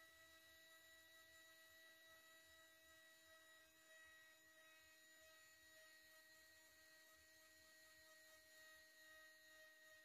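Near silence, with only a faint steady hum of a few pitched tones.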